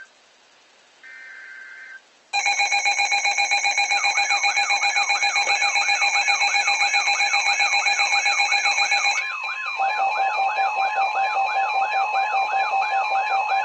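Emergency Alert System data bursts: short two-pitch digital header chirps, one ending at the start and another about a second in. About two seconds in, a loud alert tone starts: several steady tones at once with a warbling sweep repeating about three times a second over them. The mix of steady tones shifts about nine seconds in.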